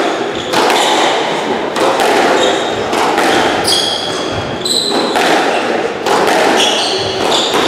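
Squash rally: the ball cracking off racquets and the court walls about once a second, with court shoes squeaking sharply on the wooden floor, echoing in the enclosed court.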